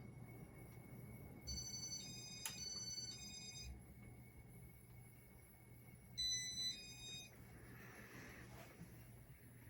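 A short electronic jingle of stepped beeping tones, played twice, over the low steady hum of a Casablanca Spirit of Saturn ceiling fan running.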